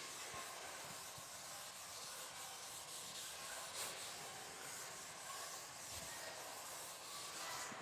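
Faint scratching of a pen writing, over a steady background hiss.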